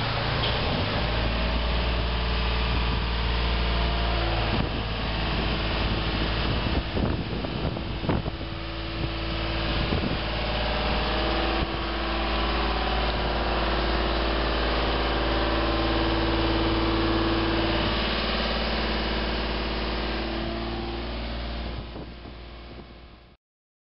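Vehicle engine running steadily with a deep hum. A few knocks come about seven to ten seconds in, and the pitch rises slightly in the second half. It cuts off sharply near the end.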